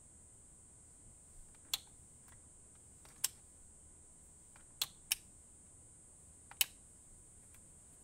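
Sharp single clicks about every one and a half seconds from an automotive turn signal flasher cycling the single-filament bulbs on and off. About five seconds in, two clicks come a third of a second apart.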